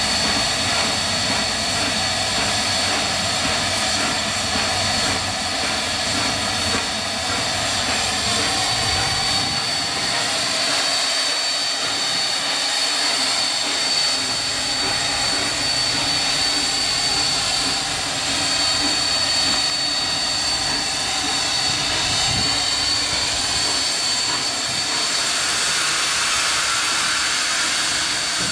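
Ol49 steam locomotive standing with steam hissing steadily from the top of its boiler, a thin high tone running through the hiss. The hiss grows stronger near the end.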